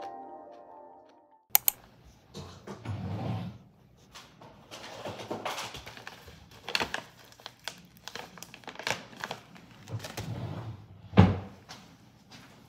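Background music fading out in the first second and a half, then small-office handling noises: papers rustling and scattered clicks and knocks, with a loud thump about eleven seconds in.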